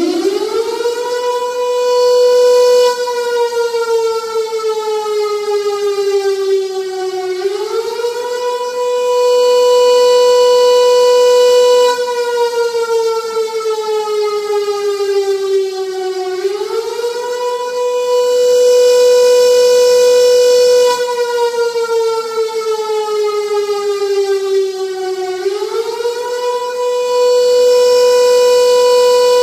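Air raid siren sounding a wail: one loud tone held at full pitch for a few seconds, then sagging slowly in pitch for about five seconds before climbing quickly back, about every nine seconds.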